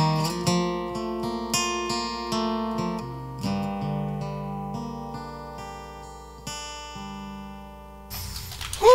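Acoustic guitar strumming a few sustained chords that ring out and slowly fade as the worship song closes. About eight seconds in the guitar stops abruptly, and a loud rising-then-falling shout rings out over crowd noise.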